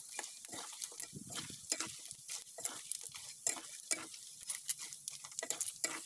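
Battered chicken skin deep-frying in hot palm oil in a wok, with dense, irregular crackling pops over a steady sizzle, while a ladle stirs it through the oil. The skin is near the end of frying, turning golden and crisp.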